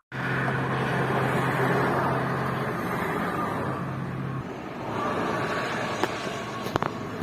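A car running, with a steady low hum that stops about four and a half seconds in, then a few short clicks near the end.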